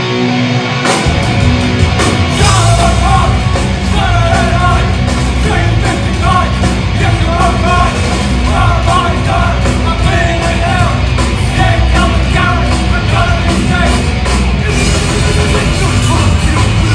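Live heavy metal/punk band playing loud: electric guitars, bass and drums come in at full force about a second in, with a singer's vocals over them.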